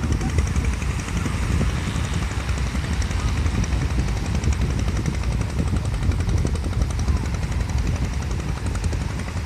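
Wind buffeting the microphone: a loud, steady low rumble that flutters rapidly throughout.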